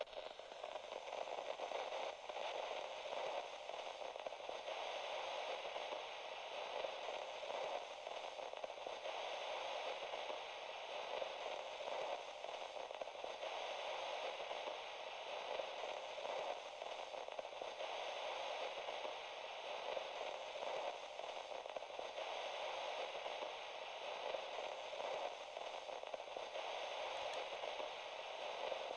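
Steady crackling static used as a sound-art noise bed. Its hiss has a lower and an upper layer, and the upper layer steps louder and softer about every four to five seconds.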